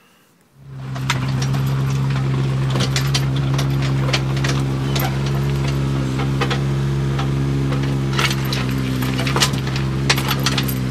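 Mini excavator engine running steadily, with scattered clinks and knocks from the bucket digging through stony soil. It starts suddenly about half a second in, after a brief near silence.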